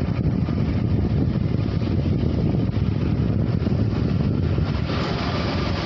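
Riding on a moving motorcycle: wind buffeting the microphone, mixed with the motorcycle's running engine and road noise.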